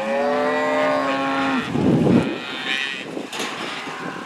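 Cattle mooing: one long, steady-pitched moo lasting about a second and a half, then a louder, rough noisy bellow around two seconds in, followed by fainter calls.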